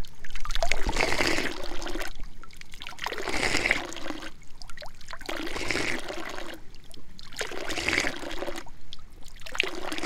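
Thin stream of water from a brass drinking-fountain spout splashing into a stone basin. The splashing swells and drops away in turns about every two seconds.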